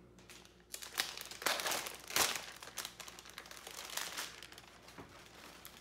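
Clear cellophane wrap being handled around a flower bouquet, crinkling and crackling in irregular bursts. The crinkling is loudest between about one and two seconds in and fades toward the end.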